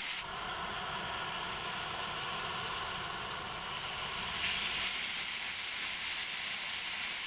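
Oxy-fuel cutting torch hissing steadily against a steel shaft. About four seconds in, the hiss grows louder and higher as the cutting-oxygen lever is pressed and the jet cuts into the red-hot steel.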